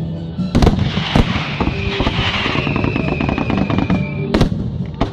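Fireworks display: loud bangs of bursting shells about half a second and a second in and again near the end, with a rapid crackling run and a hissing whistle that slowly falls in pitch between them.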